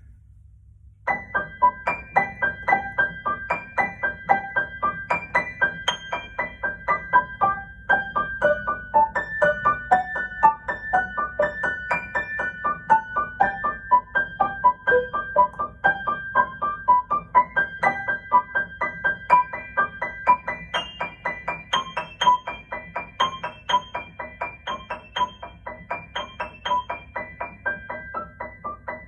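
Piano playing an improvisation, starting about a second in with a quick, evenly pulsing stream of repeated notes, several a second.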